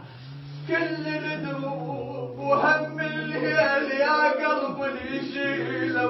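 Men's voices chanting an Arabic mourning lament for Hussein, a low held note sounding beneath a wavering melodic line for the first few seconds.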